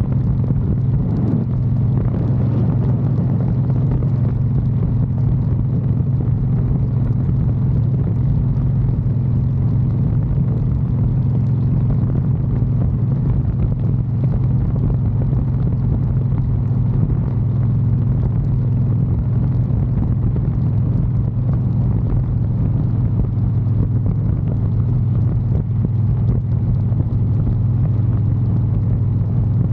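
Harley-Davidson Softail Heritage Classic's V-twin engine and exhaust running steadily, a constant low note with no revving or gear changes.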